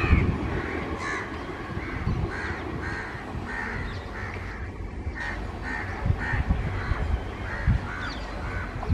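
Crows cawing over and over, about two calls a second, over the low rumble of a receding passenger train, with occasional wheel thumps. The train noise fades as it pulls away.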